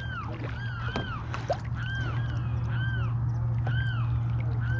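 Birds calling: a steady run of short, arched, caw-like notes, several a second and at times overlapping, as from more than one bird, over a steady low hum.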